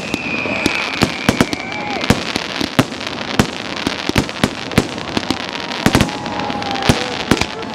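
Fireworks going off in a rapid run of sharp bangs and crackles. A whistling shell's whistle slowly falls in pitch and stops about two seconds in.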